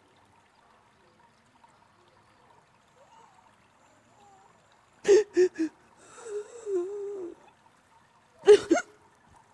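A woman crying: three quick sobbing gasps about halfway through, then a wavering whimper lasting about a second, and another sharp sob near the end.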